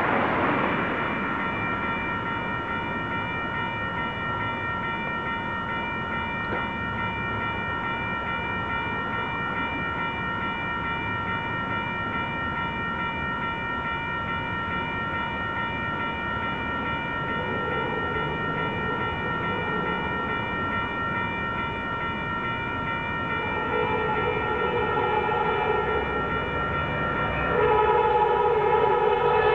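Railroad crossing warning bell ringing steadily. Over it a Caltrain locomotive horn sounds in several long blasts, faint at first and much louder near the end as the train nears the crossing.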